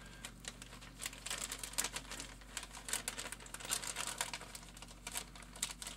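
Clear plastic zip-top bag crinkling and rustling with many quick, irregular crackles as hands work a pistol frame inside it.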